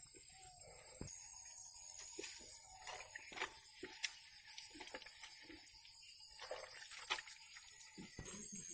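Water splashing and dribbling onto a motorcycle as it is washed by hand from a mug, in faint scattered short splashes.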